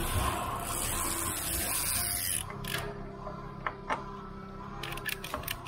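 A steady hiss that stops about two and a half seconds in, then scattered sharp metal clicks as a ratchet strap's buckle and hook are handled on a lorry trailer bed, with a quick run of clicks near the end.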